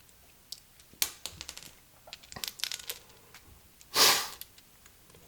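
Hand work on a motorcycle clutch assembly: scattered small clicks and knocks of metal parts and tools being handled, with one louder rustling scrape about four seconds in.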